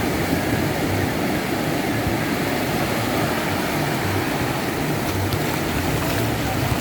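Ocean surf rushing onto a beach, a steady loud roar of breaking waves.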